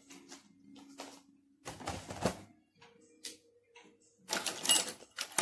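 Clicking and rustling of plastic makeup cases and packaging being handled close to the microphone, in two louder bursts about two seconds in and near the end, over faint background music.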